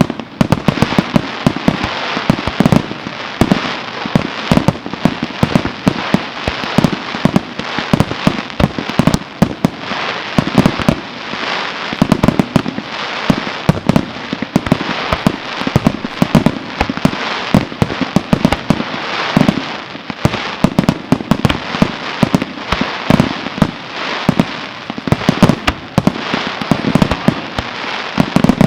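Fireworks display in a dense barrage: many loud bangs each second over a continuous crackling hiss.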